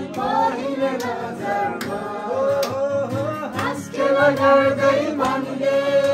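A group of voices singing a Christmas carol together to strummed acoustic guitar, with a few sharp hand claps.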